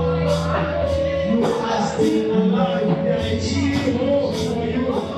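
Live church worship music: held keyboard chords and bass under a steady beat of percussion strikes about twice a second, with singing.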